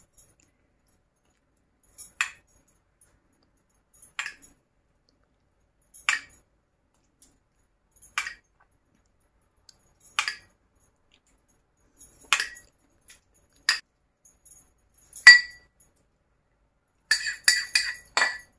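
Metal spoon clinking against a ceramic mug and a glass baking dish as tomato sauce is spooned out. Single clinks come about every two seconds, then a quick run of clinks near the end.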